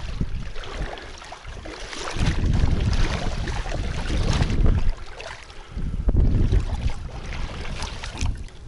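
Legs wading through shallow water, sloshing and splashing, with gusts of wind rumbling on the microphone, loudest from about two seconds in to about five, and again just after six seconds.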